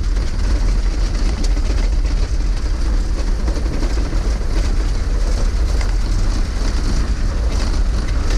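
Volkswagen Kombi van driving on a dirt road: a steady, loud low rumble of engine and tyres on the unpaved surface, with the rattle of the van's body, heard from inside the cab.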